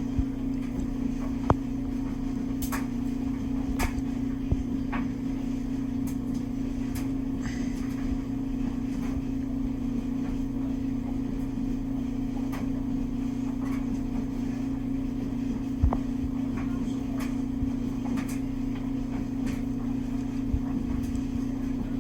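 Steady low hum from a running machine, with scattered short, sharp taps every second or few.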